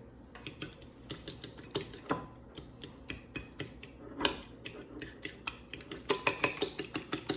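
A utensil stirring butter into beaten raw eggs in a bowl, clicking against the bowl in quick repeated taps that get louder and ring more near the end.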